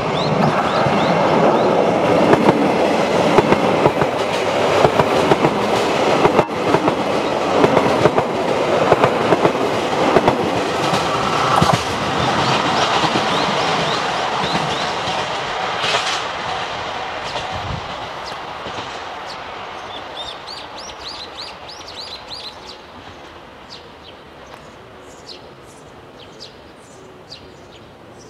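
JR Hokkaido 733-series electric multiple-unit train, two sets coupled, passing close by with rapid clicks of wheels over rail joints, then fading steadily as it pulls away over the second half. Birds chirp near the end.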